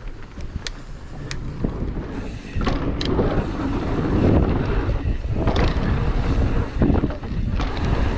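Wind rushing over the microphone and the Pivot Switchblade mountain bike rumbling and rattling over rough trail, growing louder about two and a half seconds in as it picks up speed. A few light clicks come in the first second, and knocks from bumps follow.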